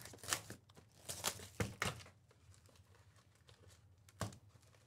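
Plastic wrapping crinkling and tearing as a trading-card box or its packs are opened by hand, in a cluster of short rustles over the first two seconds and one more near the end.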